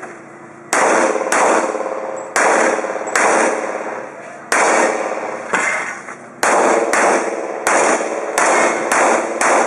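Semi-automatic pistol firing a rapid, irregular string of about a dozen shots, many in quick pairs, each shot leaving a long ringing tail.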